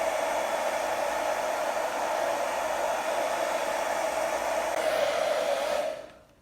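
Handheld blow dryer running steadily at full blast, then switched off about six seconds in.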